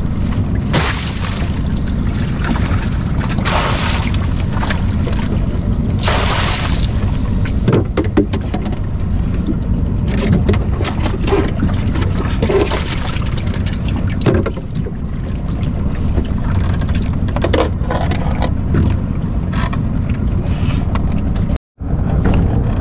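Small fishing boat on the water: a steady low rumble with a few rushing swells in the first several seconds, then scattered knocks and clicks of gear being handled. The sound cuts out for a moment near the end.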